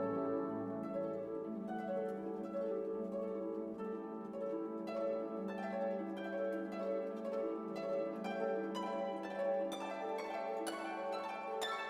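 Orchestral background music: a run of plucked string notes, harp or pizzicato, over held notes, growing busier and brighter in the second half.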